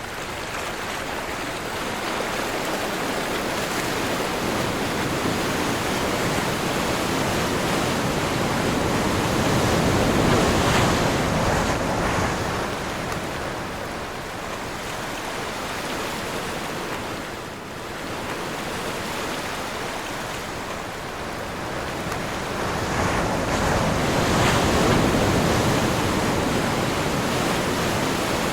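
Ocean waves breaking and washing in, with wind blowing. The surf swells louder twice, about ten seconds in and again about twenty-five seconds in.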